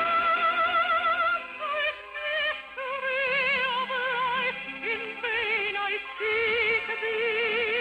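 Orchestral operetta music: a slow melody held on long notes with wide vibrato over sustained accompaniment, moving to a new note every second or two.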